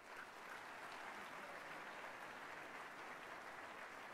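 Audience applauding, the clapping swelling at the start and then holding steady.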